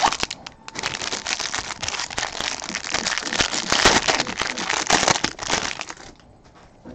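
Foil trading-card pack wrapper being torn open and crinkled by hand, a dense crackling that stops about six seconds in.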